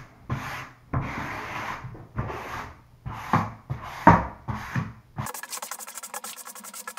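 Hand-sanding a wooden desktop: about seven scratchy back-and-forth strokes, roughly one every 0.7 s. About five seconds in the sound changes abruptly to a dense run of fast ticks.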